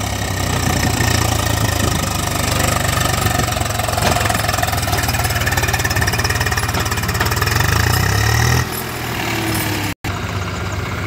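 Swaraj tractor diesel engine running steadily with a low, even note. About three-quarters of the way through it drops in level, and shortly after there is a split-second gap in the sound.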